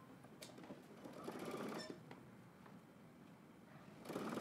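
Domestic sewing machine stitching a seam in short runs: one brief run between one and two seconds in, and a louder run near the end.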